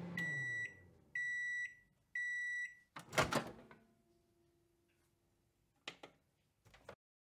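Microwave oven sounds: the running hum winds down and falls in pitch, then the oven gives three beeps to signal the end of cooking. About three seconds in, the door pops open with a loud clunk, followed by a faint hum and two short clicks near the end.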